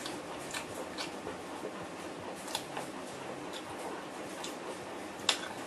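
Faint eating sounds over a low room hiss: a scattering of small clicks and smacks as food is picked from a plate by hand and chewed, the sharpest about five seconds in.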